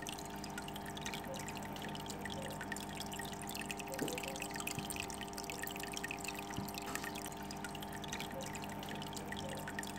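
A steady drone of several held tones under a constant patter of small water-like drips and clicks, even in level throughout.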